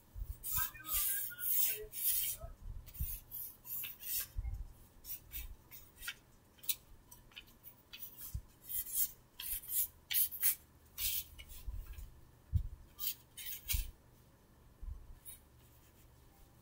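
Pencil scratching on paper in quick, irregular strokes, with a few soft low thumps between them.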